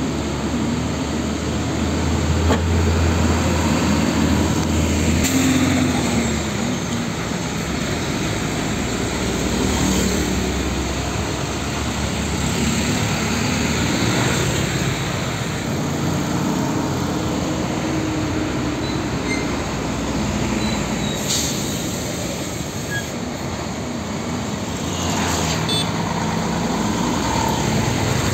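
Heavy diesel trucks passing close by one after another at a road junction, over traffic noise. First is a Hino Ranger 500 dump truck with a deep engine hum, then container trucks whose engine pitch rises and falls as they go by. A few short sharp sounds come in the second half.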